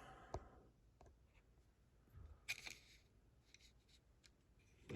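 Near silence broken by a few faint clicks and a short light rattle about two and a half seconds in: small padlock parts being handled as the lock is taken apart.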